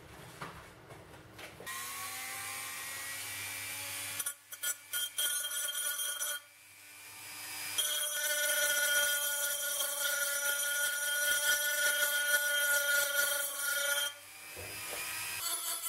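Handheld rotary tool with a small sanding drum spinning up with a rising whine, then sanding a hardened patch of aluminium filings and super glue on an aluminium cup: a few short scraping touches, a brief stop, then a longer steady whining pass with a high rasp that cuts off near the end.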